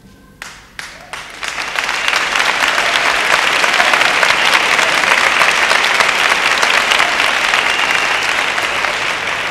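Large crowd applauding. A few scattered claps start it, then within about two seconds it swells into dense, steady applause that eases slightly near the end.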